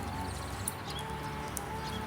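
Forest birds singing: repeated short chirps and low, drawn-out whistled notes, over a steady low rumble.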